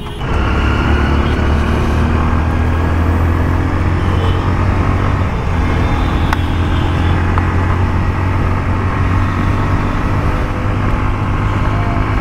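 Hero Hunk motorcycle's single-cylinder engine running steadily at cruising speed, with wind and road noise rushing past, the engine note shifting slightly about five seconds in.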